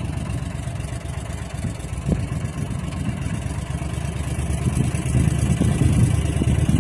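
Tour boat's motor running steadily with a low rumble, getting louder in the last couple of seconds.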